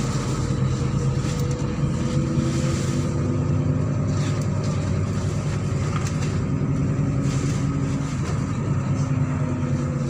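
Inside a MAZ-103 city bus under way: the engine runs with a steady drone, its pitch shifting slightly with speed, over tyre and road noise.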